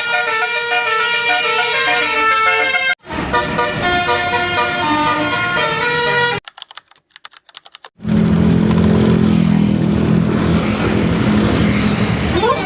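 Multi-tone 'telolet' bus air horn playing short tunes, in clips cut together, stepping between pitches. After a brief break about six and a half seconds in, a lower, steadier horn note sounds over vehicle noise.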